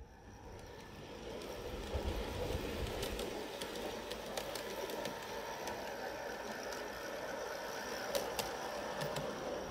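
Model County Donegal railcars running along 45 mm gauge garden-railway track: a steady running noise from wheels and drive, growing louder over the first couple of seconds as they come near. Irregular sharp clicks sound as the wheels cross the rail joints.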